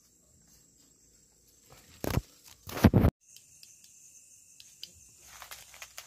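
Night insects calling with a steady high-pitched trill and a lower steady tone, faint at first and plain from about three seconds in. About two and three seconds in, two loud short bursts of noise stand out above them.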